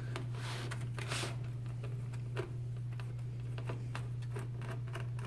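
Faint small clicks and scrapes of a screwdriver turning a screw and hands handling a keyboard's metal plate and plastic case, over a steady low hum.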